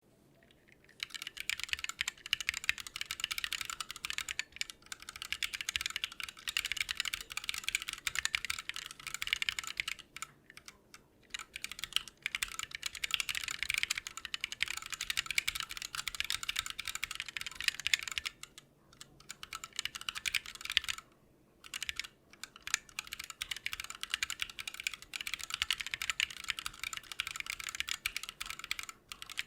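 Steady fast typing on a Lily58 Pro split mechanical keyboard with Blue Bubblegum switches: a dense run of rapid key clacks, broken by several short pauses.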